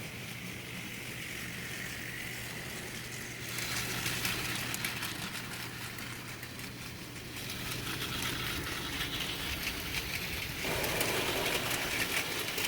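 Plarail Yong Bao toy train running on plastic track: the steady hum of its small electric motor under a dense, fast clicking of wheels over the track. It grows louder about three and a half seconds in and again near the end.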